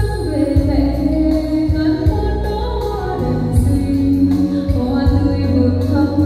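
Vietnamese Catholic flower-offering hymn played over loudspeakers: a singing voice holding and sliding between long notes over instrumental accompaniment with a deep, continuous bass.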